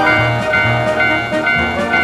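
Background music with a steady beat, bright high melody notes over a bass that pulses about twice a second.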